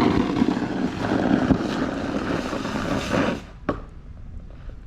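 Snow shovel blade pushing and scraping through snow across pavement for about three and a half seconds, then a single sharp knock.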